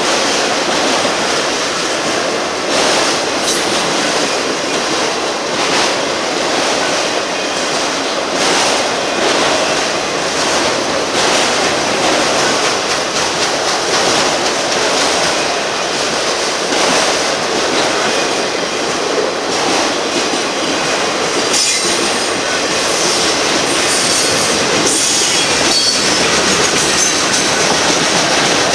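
Union Pacific freight train's cars rolling past, a steady rumble broken by the clatter of wheels over rail joints. A thin, high wheel squeal comes in briefly past the middle.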